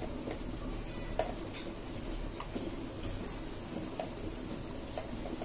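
Garlic cloves and fennel seeds sizzling gently in a little oil in a kadai, with scattered small pops. The garlic is being lightly fried.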